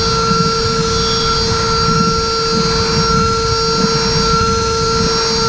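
Datron M8Cube CNC mill's high-speed spindle turning an end mill at about 27,000 RPM on a finishing pass in aluminum. It makes a steady, high-pitched whine with a rougher, fluttering cutting noise underneath.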